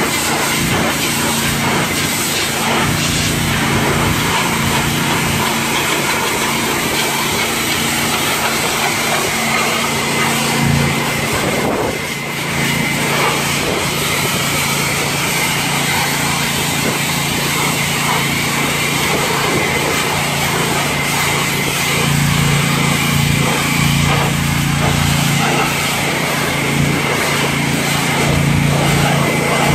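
Pressure washer running: the steady hiss of the spray wand hitting a pickup truck's body over the machine's steady hum, with a brief drop about twelve seconds in.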